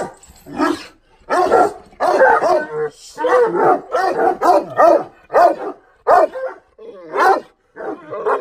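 Large dog, a grey Cane Corso, barking over and over, about two barks a second with short breaks.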